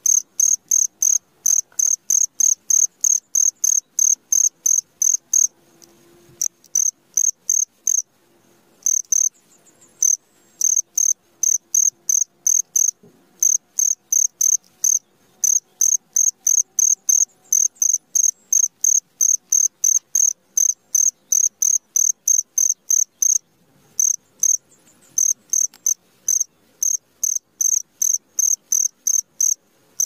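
Cricket chirping in a steady, even rhythm of about three high-pitched chirps a second, with a few brief pauses.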